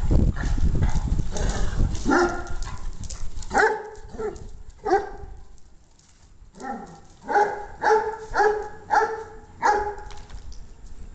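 Dogs at rough play: about ten short barks, several falling in pitch, in two runs with a brief lull about six seconds in, after a low rumbling scuffle at the start.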